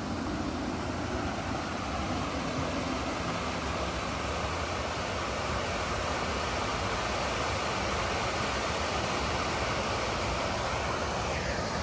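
Snowmelt creek water rushing over a small rocky cascade below bridge culverts: a steady, even rush of heavy runoff flow.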